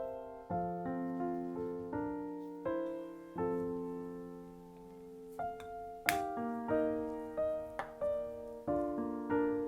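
Soft background piano music, slow sustained notes and chords. About six seconds in there is a single sharp click or knock.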